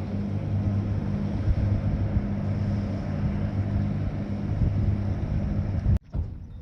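A motor engine running steadily at an even pitch under a rough rumble, cutting off abruptly about six seconds in.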